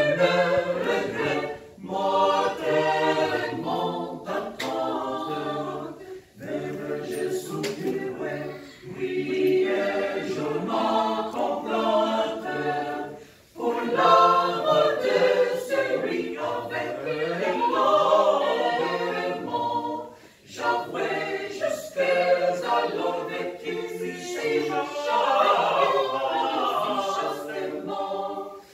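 Small mixed choir of women's and men's voices singing a cappella, in phrases with brief pauses between them.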